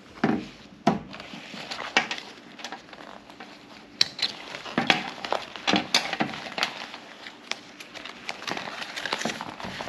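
Crinkling and rustling of a plastic dry bag being handled and its top folded shut, with irregular sharp crackles throughout.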